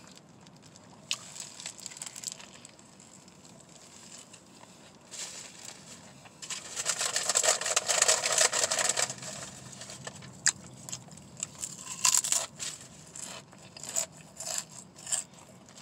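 Paper sandwich wrapper crinkling and rustling for a few seconds around the middle, the loudest sound, with scattered small clicks and quieter chewing and mouth sounds around it.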